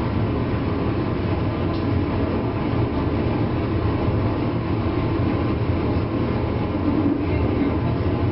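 Running sound heard inside a JR East 201 series electric train's motor car, above its armature chopper control unit: a steady rumble of wheels and motors with a steady electrical hum of fine tones from the chopper running through it.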